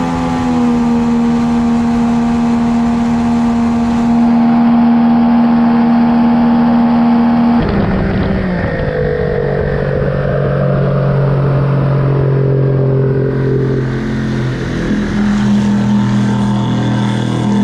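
Tohatsu outboard motor running at speed, with water rushing and spraying past the stern. Its pitch drops sharply about halfway through and climbs again near the end.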